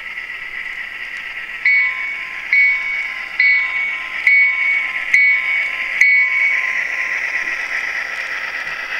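HO-scale Walthers Proto SD9 model diesel with a Tsunami sound decoder running past, its sound coming through a small onboard speaker as a steady hiss. Starting about two seconds in, a bell strikes six times, a little under once a second. The hiss fades as the locomotive moves away near the end.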